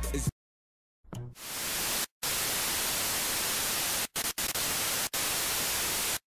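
Television static: an even, rushing white-noise hiss. It fades in about a second in, after a brief silence, and cuts out for a split second several times.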